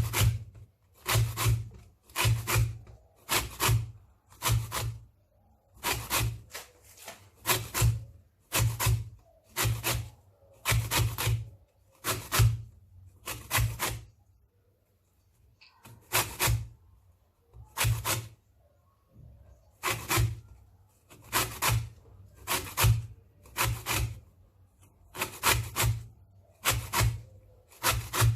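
Lemon peel being grated on a coarse hand grater: repeated rasping strokes, about one every half-second to second, with a pause of about two seconds about halfway. Only the yellow zest is being taken off, not the white pith.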